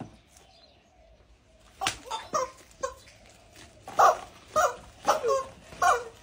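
Rubber screaming-chicken toys squeezed underfoot, giving a quick run of short squawks that starts about two seconds in, the loudest near the middle and the end.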